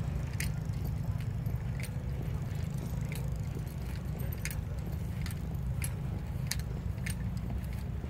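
A light jingling click about every two-thirds of a second, in step with a walking pace, over a steady low rumble.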